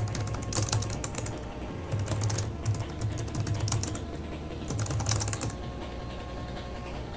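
Computer keyboard typing in four short bursts of keystrokes, then a pause of about a second and a half near the end. Faint background music plays under it.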